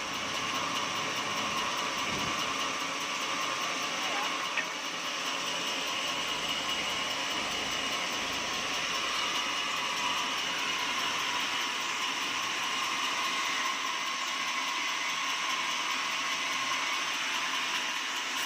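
Sawmill machinery running steadily, an even mechanical drone with a thin steady whine, and one short click about four and a half seconds in.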